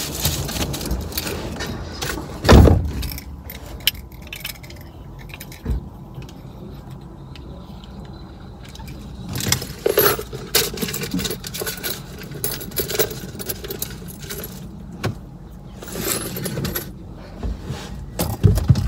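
Rustling, clicks and small knocks of clothing and small items being handled inside a car, with one loud dull thump about two and a half seconds in.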